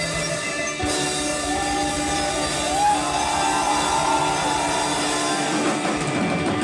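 Band music of held tones, with a wavering, gliding voice-like line over it from about a second in.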